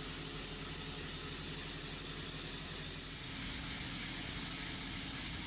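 Tractor engine running steadily under the steady hiss of a hydraulically driven steel wire brush spinning and scrubbing along a curb edge and asphalt. The scrubbing hiss grows a little louder about three seconds in.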